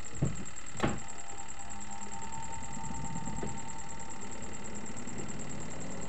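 Sharp twin-tub washing machine's spin-dryer motor running steadily, with a short click just under a second in. The spinner turns again now that its brake lining has been readjusted.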